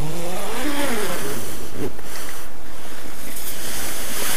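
A man's drawn-out groan, rising then falling in pitch for about a second and a half at the start, over a steady rushing noise that swells near the end as he crawls out through the canvas tipi's door.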